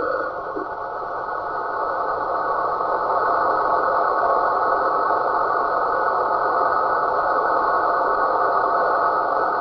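Steady static from a radio receiver, a rushing noise held to a narrow midrange band without speech or music. It dips slightly just after the start and builds back up within a couple of seconds.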